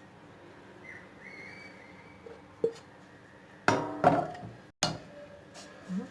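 Several sharp clinks and knocks of a kitchen utensil against cookware, a little over halfway through, while lemon cream is scraped out onto a tart.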